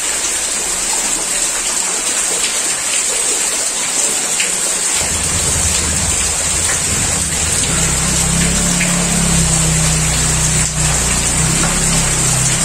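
Heavy rain pouring steadily onto floodwater and the ground, a dense continuous hiss. About five seconds in, a motorcycle engine starts running, a steady low hum under the rain.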